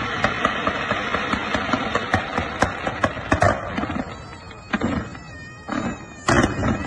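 Fireworks going off: dense crackling with many sharp bangs, thinning out about four seconds in, then a few louder bursts near the end.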